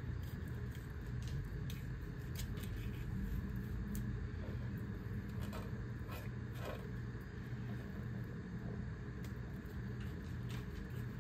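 Steady low hum in the background, with scattered short clicks and scrapes as a thin knife works a catfish on a plastic cutting board to skin it.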